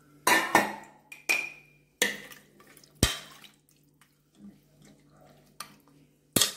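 A metal spoon stirring mutton pieces in water inside an aluminium pressure cooker, clinking against the pot about seven times at uneven intervals, with light splashing of the water.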